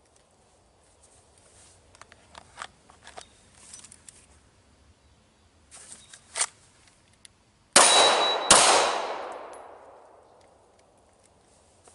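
Two pistol shots less than a second apart near the end, each trailing a long echo that dies away over a couple of seconds. Before them come small clicks of handling.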